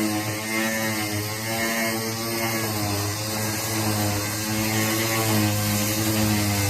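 A machine or motor running steadily, a loud low hum with overtones that drift slightly up and down in pitch.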